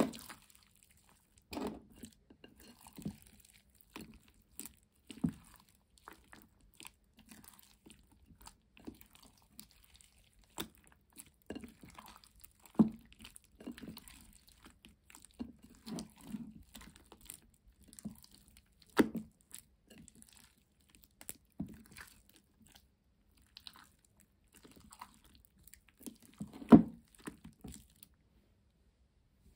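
Hands kneading and squeezing a slime smoothie (several slimes mixed together): irregular wet squelches, pops and crackles, a few of them louder. The sound stops shortly before the end.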